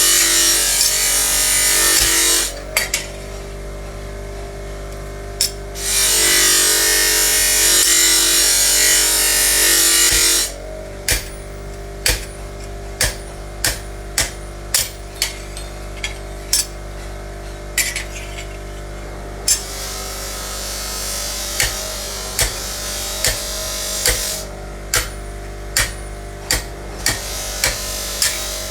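A power tool runs loudly in two bursts of a few seconds each with a steady whine, then a long run of sharp taps, about one every second or less, over a steady background hum.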